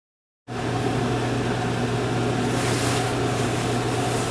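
Smoke-exhaust ventilation fan running, a steady low hum with a rush of air as it draws flux smoke off a lead-melting pot; it starts about half a second in.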